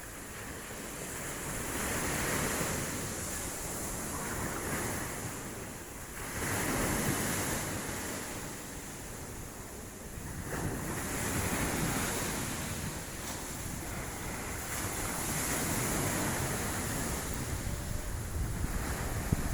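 Sea waves washing onto a beach, the surf swelling and falling back about every four to five seconds, with wind rumbling on the microphone.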